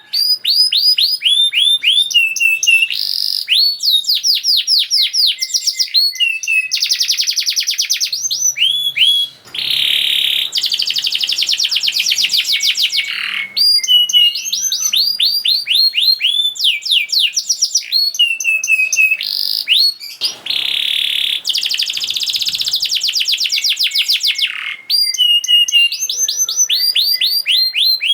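Domestic canary singing a fast, tightly packed song with barely a pause. Runs of rapidly repeated downward-sliding notes alternate with dense buzzing trills.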